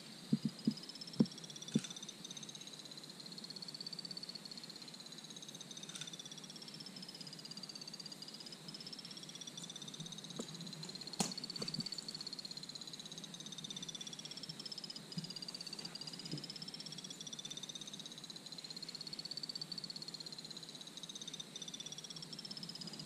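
Electronic ghost box used for spirit communication, running: a thin electronic tone slides slowly up and down, about eight seconds per rise and fall, over fast, even, choppy pulsing. A few sharp clicks fall in the first two seconds and one near the middle.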